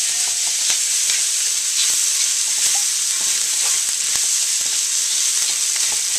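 Rice and vegetables sizzling on high heat in a wok, stirred and tossed with a slotted spatula that knocks and scrapes against the pan now and then.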